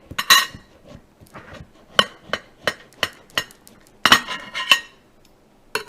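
A knife cutting a papaya in half lengthwise: a series of sharp, irregular clicks and knocks, with a denser cluster about four seconds in.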